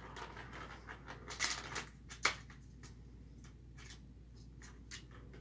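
Light, scattered clicks and rattles of a cat batting at a plastic ball-track toy. A louder rattle comes about a second and a half in and a sharp click just after two seconds.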